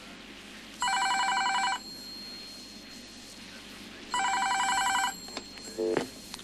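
Telephone bell ringing twice, each ring about a second of fast trilling, about three and a half seconds apart, over steady tape hiss: an incoming listener call on the radio station's phone line. A few short clicks follow near the end as the call is answered.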